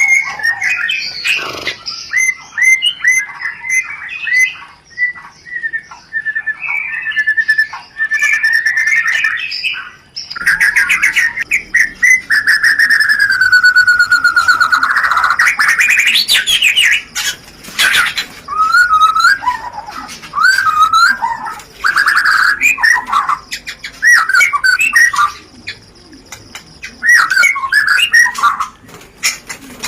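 White-rumped shama (murai batu) mating song. For about the first ten seconds it is a fast run of repeated chattering notes. Then comes one long whistle that slides down and climbs high again, followed by varied whistled phrases and sharp chips.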